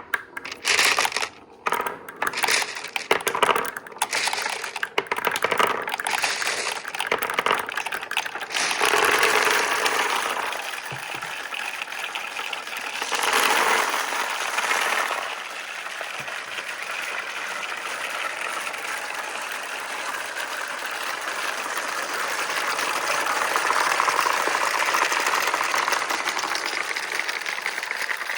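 Glass marbles on a marble run: sharp clicks and clatters for the first several seconds, then a steady rolling rumble as many marbles run down the slopes, swelling a couple of times.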